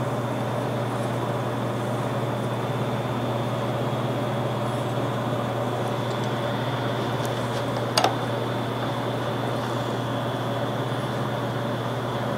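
Steady hum of an electric machine motor running, with a thin high whine over it. About eight seconds in, one sharp click of a small metal part set against the steel vise.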